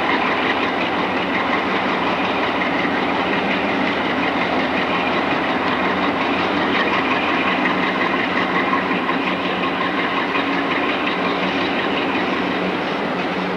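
An Alco C425 diesel locomotive's engine runs steadily as the locomotive moves slowly past hauling tank cars.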